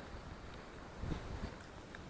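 Wind buffeting the microphone as a low, unsteady rumble, with a faint knock about a second in.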